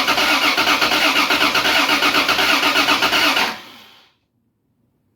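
A Toyota 2JZ inline-six being cranked over on the starter for its first start after a head gasket replacement, with a fast, even chugging that stops abruptly about three and a half seconds in.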